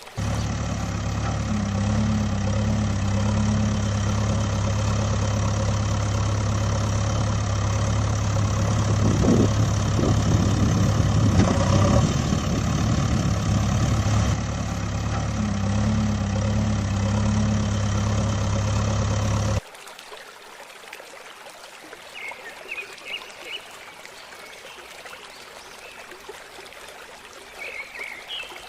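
Vehicle engine running steadily with a deep hum, starting abruptly and cutting off suddenly about twenty seconds in. A quieter background follows with a few short, high chirps.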